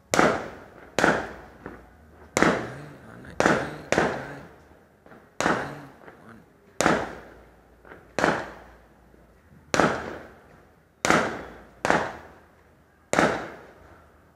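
Fireworks bursting in the sky: a steady run of loud, sharp bangs, about one every second or so, each trailing off in a rolling echo.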